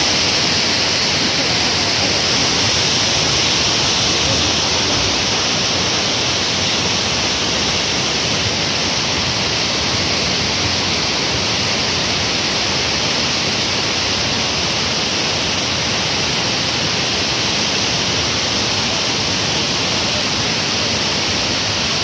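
Waterfall: white water cascading over rocks in a steady, unbroken rush.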